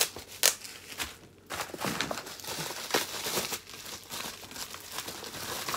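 Plastic bubble wrap crinkling and rustling as it is handled and pulled open, with several sharp snaps, the loudest near the start, about half a second in and about three seconds in.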